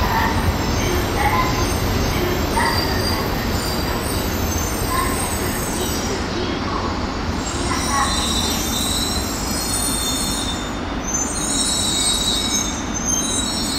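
Shinkansen train running slowly along a station platform: a steady rumble of wheels on rail, with thin high squealing tones coming in from about eight seconds in.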